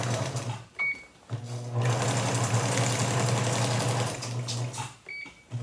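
Electric sewing machine stitching a second reinforcing line through a feed-sack bag. It runs in bursts, stopping briefly twice, with a short high beep in each pause.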